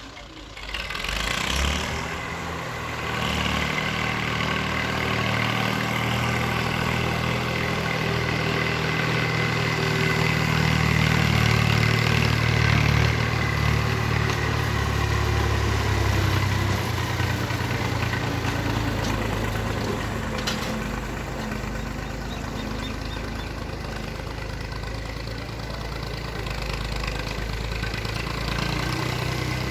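Diesel engine of a JCB excavator running, picking up sharply about a second in and working hardest through the middle, then easing a little.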